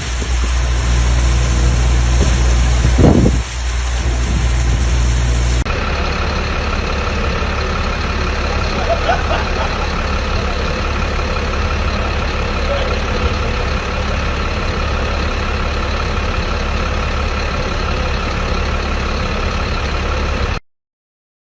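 A vehicle engine running steadily, its sound changing abruptly about five seconds in, then cutting off suddenly near the end.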